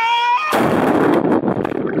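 A short, high-pitched yell that is cut off about half a second in. The kayak flips and the camera plunges underwater, into the muffled churning and bubbling of whitewater rapids.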